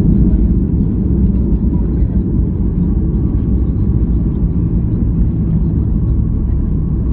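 Boeing 737-800 rolling out on the runway after touchdown, heard from inside the cabin: a loud, steady low rumble from the engines and the wheels on the tarmac as the airliner slows.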